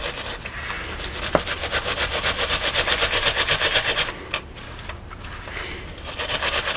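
Hand wire brush scrubbing rust off a small steel hammer wedge in rapid back-and-forth strokes. The scrubbing pauses about four seconds in and starts again near the end.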